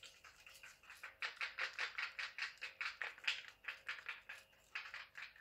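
Wooden craft stick stirring a wet, sticky mixture of glue, peel-off mask and pink paint in a bowl, a quick run of squelchy clicking strokes about four a second that begins about a second in.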